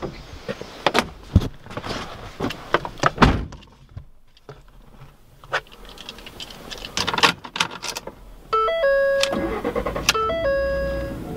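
Clicks and knocks of handling in a Ford pickup truck's cab. About eight seconds in, a steady low hum comes in under a short melody of stepped notes that repeats.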